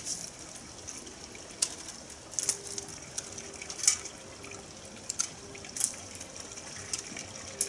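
Pruning shears snipping Japanese maple shoots: about ten short, sharp snips at irregular intervals as the branches are cut back.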